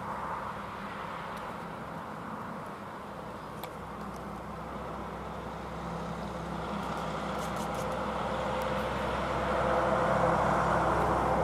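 Two coupled DB class 612 diesel multiple units approaching, their diesel engines droning and growing steadily louder over the second half.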